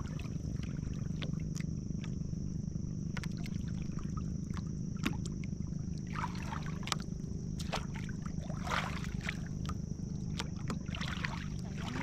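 Water sloshing and splashing in short, scattered bursts around a person wading chest-deep and working underwater, over a steady low rumble and a thin steady high tone.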